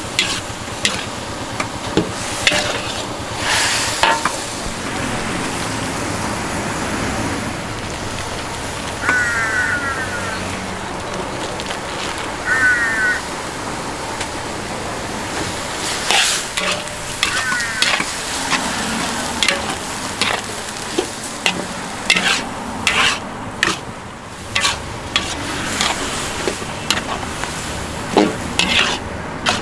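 Food sizzling as it fries in a hot pan while a metal utensil stirs it, with frequent clanks and a few short scrapes of metal on metal.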